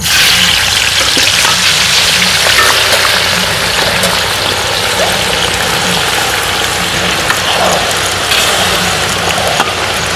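Thin potato slices deep-frying in hot oil in a large wok, a loud steady sizzle and bubbling.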